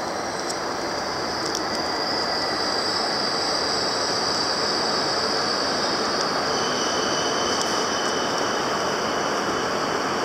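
Tohoku Shinkansen train pulling into the station: a steady rushing noise that grows a little louder over the first few seconds, with high steady whines over it and a lower whine joining about six and a half seconds in.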